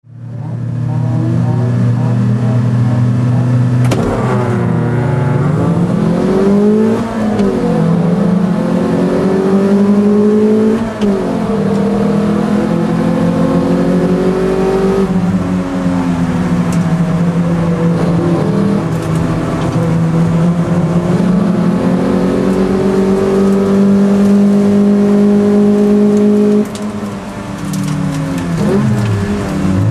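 Toyota MR2 race car's four-cylinder engine, heard from inside the cabin. It holds steady revs for about four seconds, then accelerates hard, rising in pitch through the gears and dropping at each upshift, with a brief lift off the throttle near the end.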